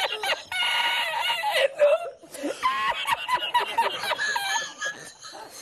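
A man laughing hard in a high-pitched, breathy fit of short wavering squeals, breaking off briefly about two seconds in before starting again.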